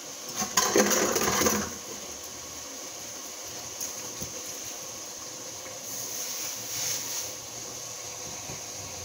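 Diced chicken breast sizzling in a pan as it browns: a steady hiss, with a louder, rougher rush of noise for about a second near the start and a smaller swell about six seconds in.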